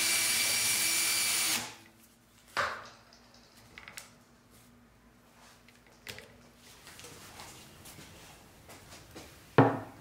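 Cordless drill running steadily with a wooden toy wheel mounted on a mandrel in its chuck, then stopping about a second and a half in. Afterwards come a few light handling knocks, and a sharp knock near the end.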